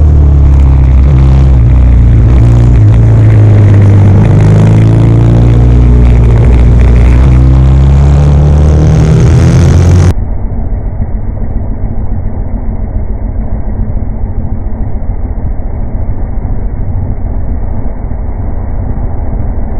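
Onboard sound of a short-stroke 1972 Norton 750 Commando's air-cooled parallel-twin engine at racing revs, its note rising and falling through the corners. About halfway through, the sound abruptly turns muffled and dull, a rough rumble with no clear engine note.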